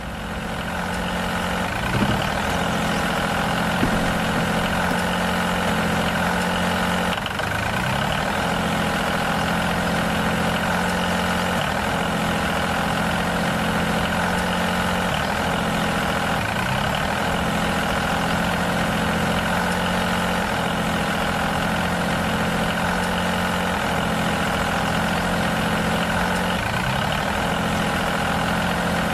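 A motor running steadily with a constant pitched whine, dipping briefly in pitch about every five seconds.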